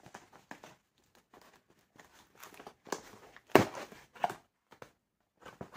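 Cardboard shipping box being pulled and torn open by hand: scattered rustles and scrapes of cardboard and packing tape, with one loud sharp rip about three and a half seconds in and a smaller one just after.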